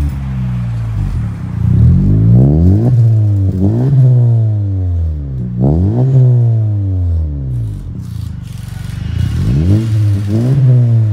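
Honda Civic FK's 1.5-litre turbocharged four-cylinder, fitted with an aftermarket downpipe, mid-pipe and single-exit tailpipe, revved in a series of short blips. Each one rises sharply and falls back toward idle, about half a dozen times, with a lull just before the last few.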